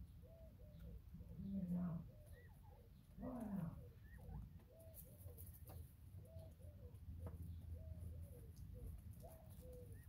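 Northern bobwhite quail giving soft, short chirping calls, repeated about twice a second. Two louder calls come about one and a half seconds in and three and a half seconds in, the second sliding down in pitch.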